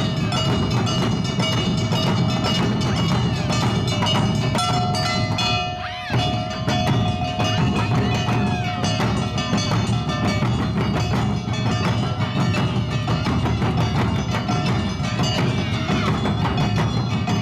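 Awa odori festival band playing: struck hand gongs and drums keep a dense, steady beat, with a flute holding a long note for a few seconds. The playing drops off briefly about six seconds in, then picks up again.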